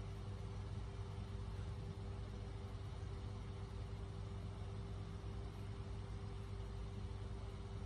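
Steady low mechanical hum with a constant higher tone over it, unchanging throughout.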